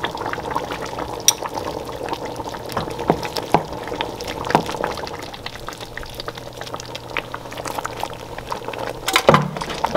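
A pot of tomato sauce with vegetables simmering and bubbling, with scattered light clicks of metal tongs as egg-battered fish pieces are laid into the sauce.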